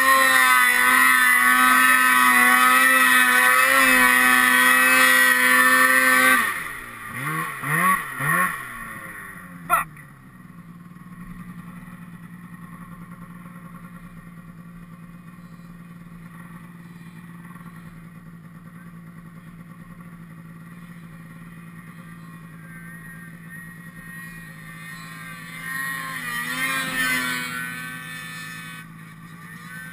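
Snowmobile engine running hard at high revs, then the throttle is let off about six seconds in, followed by a few short revs and a click, after which it idles steadily. Near the end the engine sound swells briefly again.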